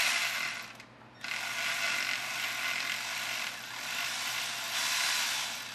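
Ratchet wrench run in two long spells, with a short break about a second in, loosening the transmission pan bolts of a 2012 Chevrolet Silverado 1500 so the pan drops and the fluid drains.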